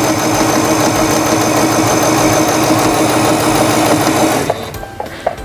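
Domestic electric sewing machine sewing a straight seam forward at a steady speed: a motor hum with rapid needle stitching. It stops about four and a half seconds in, followed by a few light clicks.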